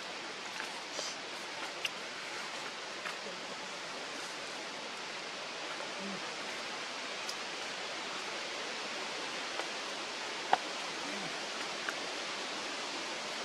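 Steady outdoor background hiss, like distant running water or wind, with a few faint clicks. The sharpest click comes about ten and a half seconds in.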